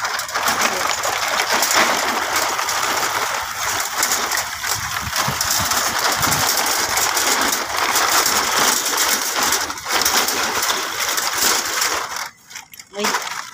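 Thin corrugated plastic sheeting crackling and rattling right at the phone's microphone, a steady crinkly clatter that cuts out shortly before the end.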